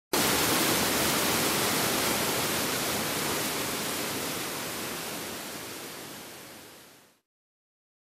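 Water rushing down a rocky stream cascade, a steady hiss that starts abruptly and slowly fades out to silence about seven seconds in.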